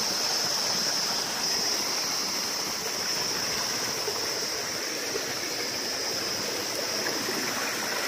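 Small rocky hillside stream running over stones, a steady rush of water, with a steady high-pitched drone above it.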